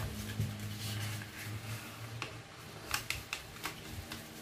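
A sheet of paper being folded and creased by hand, with a handful of short, crisp rustles and crackles, mostly in the second half, over a faint steady low hum.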